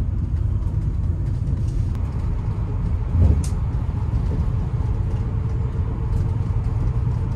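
Cabin noise inside a moving coach bus at highway speed: a steady low rumble of engine and tyres on the road, with a brief louder bump about three seconds in.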